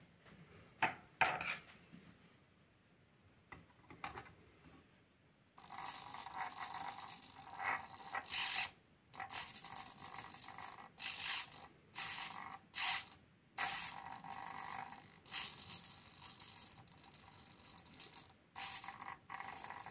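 Small hobby micro servo whirring through its gears in short bursts, each time it drives its horn to a new position as the trimmer potentiometer that sets its PWM signal is turned. A few faint brief whirs in the first seconds, then from about six seconds in a quick run of bursts with short pauses.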